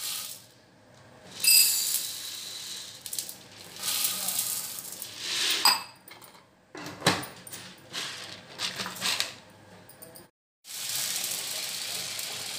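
Dry chana dal (split chickpeas) poured in several goes into a stainless steel pot, the hard grains rattling and pattering on the metal, with clinks of the steel vessels in between. Near the end, water is poured into the pot in a steady stream over the dal.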